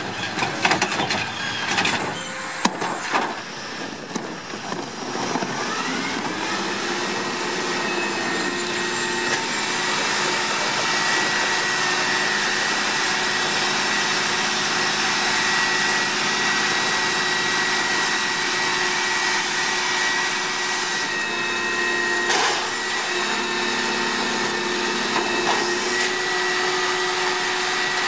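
Rear-loader garbage truck: knocks and bangs as a cart is tipped into the hopper, then about five seconds in the engine revs up with a rising whine that settles into a steady high hydraulic whine while the packer blade cycles through the hopper.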